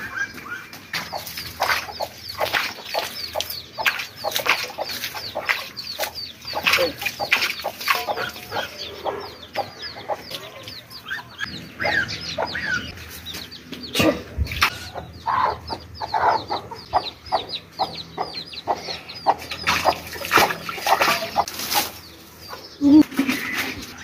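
Farmyard birds chirping in quick, repeated high calls, with fowl clucking and scattered knocks and clatter throughout.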